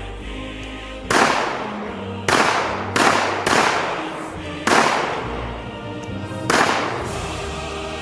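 Six shots from .380 ACP pocket pistols (Ruger LCP MAX) fired at uneven intervals, each a sharp crack with a short ringing tail, over background music.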